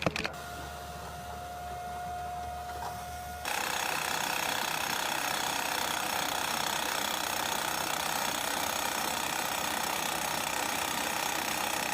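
A machine running. A low hum with a steady tone changes abruptly, about three and a half seconds in, to a louder, dense mechanical noise that then holds steady.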